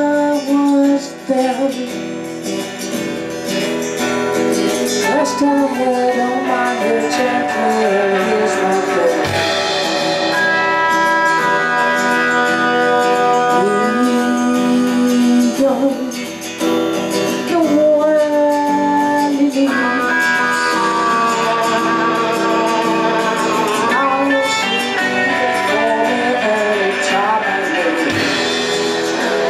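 A live band plays a song: a woman sings over a strummed acoustic guitar, with electric bass and electric guitar.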